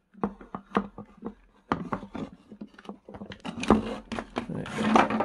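The plastic casing halves of an Inse S600 cordless stick vacuum are being pulled apart by hand: a run of irregular plastic clicks and knocks, then a longer scraping creak near the end.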